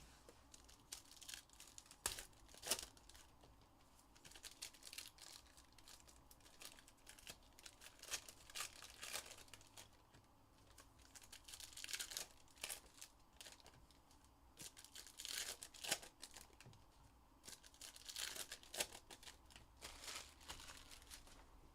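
Faint tearing and crinkling of trading card packaging, with scattered light clicks and rustles, as a hobby box of baseball cards and its packs are opened by hand.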